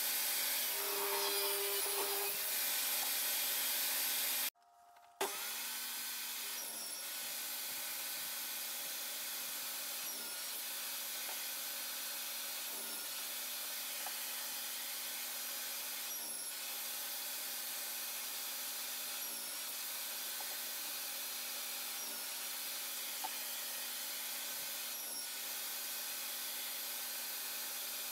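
Table saw running and cutting wood. About four and a half seconds in the sound drops out briefly, then the saw runs on steadily, a little quieter, with a faint change about every three seconds.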